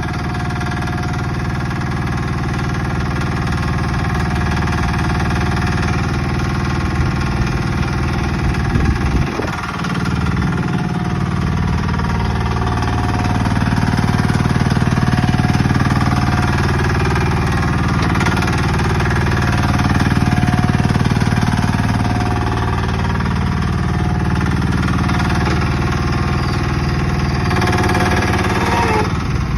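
Mini excavator engine running with its hydraulics working. The engine note dips briefly about a third of the way in. After that it sags and recovers every few seconds as the hydraulics load it.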